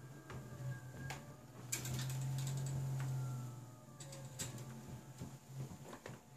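Homemade 3D printer running a print: a steady motor hum with faint gliding whines as the print head moves, and scattered clicks and ticks. The hum grows louder for about two seconds in the middle.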